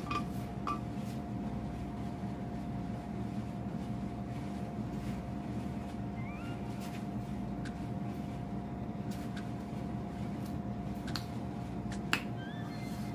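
Sparse, sharp mouth clicks and smacks from eating fried chicken, over a steady hum, with one louder click near the end.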